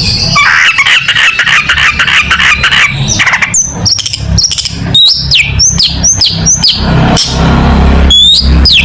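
Long-tailed shrike singing. It opens with a fast chattering trill, then gives a run of about six sharp whistled notes that each slide downward, and near the end a few quick rising and falling notes, over a low steady hum.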